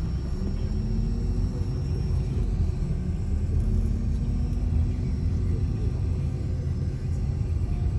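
Steady low rumble with a faint, even hum above it.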